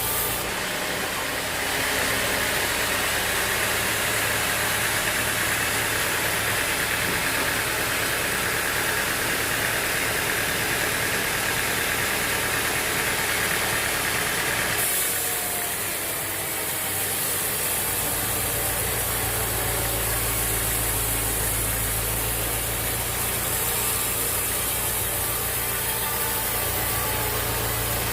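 Sawmill machinery running steadily: an engine with a constant hiss over it. About fifteen seconds in the hiss drops back, and a few seconds later a deeper hum comes up.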